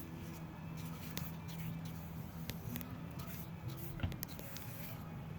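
Paintbrush dabbing and stroking paint onto a fiberglass surface, with scattered light clicks, over a steady low hum.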